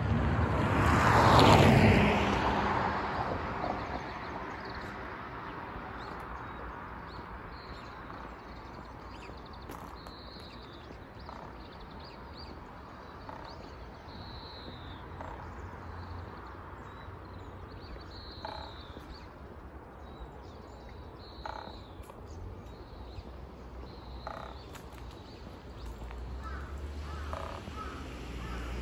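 Birds calling over a steady outdoor background: many short high chirps, with a few crow caws in the second half. A louder rush of noise swells and fades in the first two seconds.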